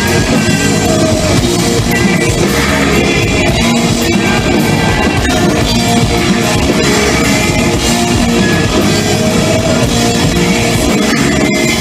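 Live rock band playing heavy, distorted electric guitars, bass and drum kit, loud and continuous.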